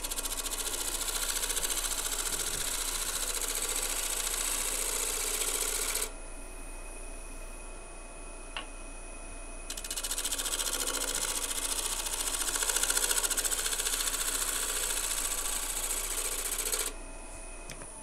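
A gouge cutting a spinning natural-edge bowl on a wood lathe: a rapid, pulsing cutting noise, because the edge meets wood and air by turns on each revolution. There are two passes of about six and seven seconds, with the lathe running on its own in the gap between them.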